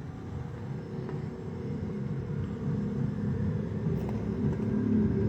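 Low engine rumble that grows steadily louder, as of a motor vehicle coming closer.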